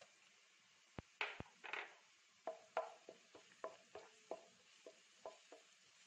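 Spatula stirring chopped shallots and ginger-garlic paste in a nonstick pan, knocking and scraping against the pan about a dozen times, starting about a second in.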